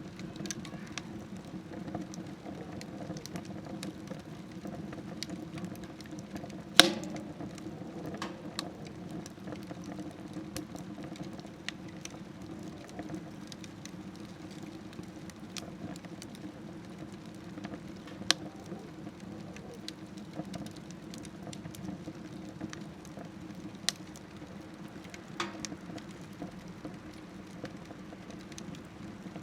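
Firewood burning in a small smokeless wood stove: a continuous soft crackle over a steady low hum, with sharp pops, the loudest about seven seconds in and a few more later.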